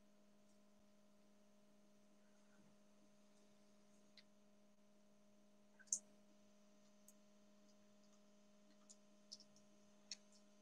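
Near silence: a faint steady electrical hum, with a few faint short clicks about six seconds in and again near the end.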